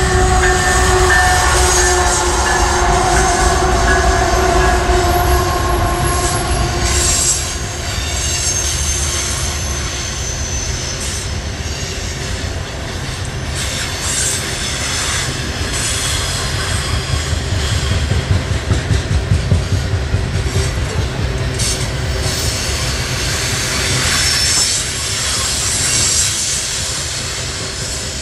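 Loaded coal train rolling past: the locomotives give a steady whine over a low rumble for the first several seconds, then the hopper cars' steel wheels rumble and clack along the rails, with intermittent high wheel squeal.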